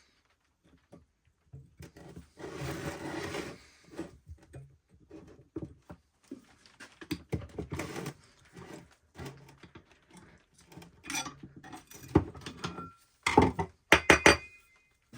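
Irregular knocks and metallic clinks as hard objects are handled and set down, with a brief rushing, scraping noise about two seconds in and a quick run of louder clinks near the end.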